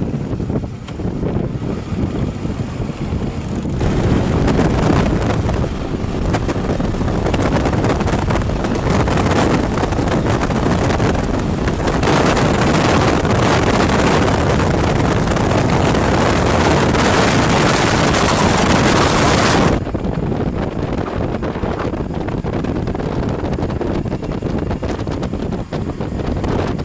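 Wind rushing over the microphone of a moving Suzuki V-Strom motorcycle, with road and engine noise under it. About four seconds in it grows louder and hissier, as at highway speed, and it drops back suddenly about twenty seconds in.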